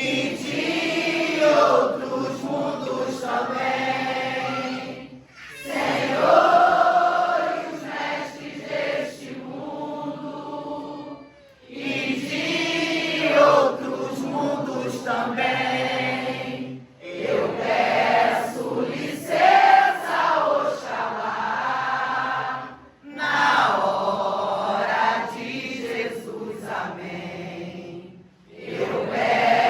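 A group of voices singing a devotional chant together, in phrases of about five to six seconds broken by short pauses for breath.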